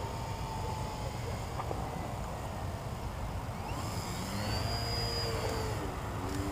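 Faint whine of the E-flite Mini Funtana X's electric motor and propeller, gliding up and down in pitch as the small RC plane changes throttle and passes overhead, settling on a lower steady tone near the end. Under it runs a steady low rumble of wind on the microphone.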